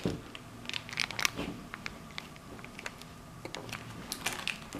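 Faint scattered clicks and crinkling as small plastic toy figures and their wrapping are handled.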